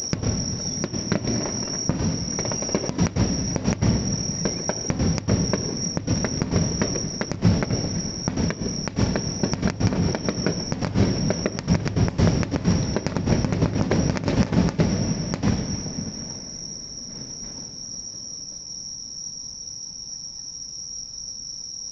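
Fireworks going off in a rapid, dense string of bangs and crackles that stops abruptly about three-quarters of the way through. Insects sing with a steady high-pitched buzz throughout and are left alone at the end.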